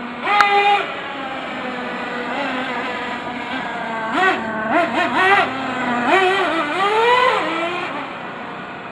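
Radio-controlled truck's motor revving in short bursts, its pitch rising and falling with the throttle, several quick rises in the middle and a long rise near the end. A single sharp click comes just under half a second in.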